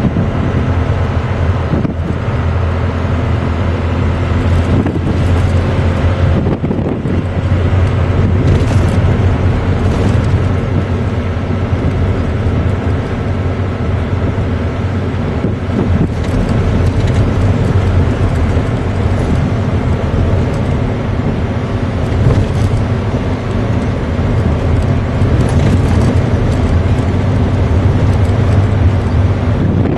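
12-valve Cummins 5.9-litre inline-six turbo diesel running at a steady cruise under the load of a bulldozer on the trailer, heard from inside the pickup's cab as a low, even drone over road noise.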